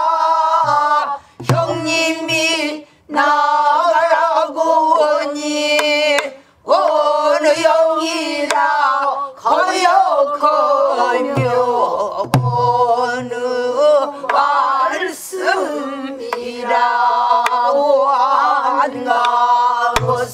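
A group of men and women singing pansori in unison, drawing out long, melismatic lines with a wavering, shaken pitch and short pauses for breath. A buk barrel drum gives a few low strokes beneath the singing to keep the rhythmic cycle.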